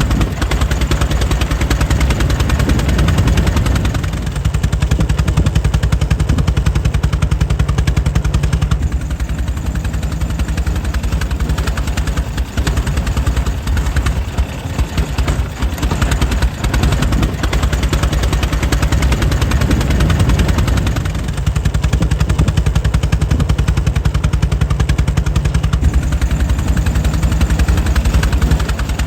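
Air-cooled 1904 Mitchell engine running steadily, a rapid, even train of firing pulses that never breaks, easing slightly in level a few times.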